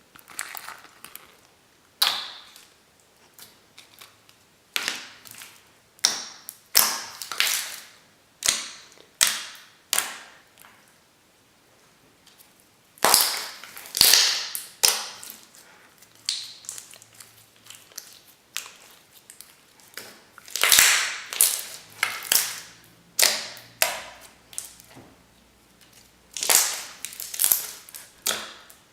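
Slime being pressed, poked and stretched by hand, giving a run of irregular, sharp pops and clicks, some loud, with short bubbly crackles between.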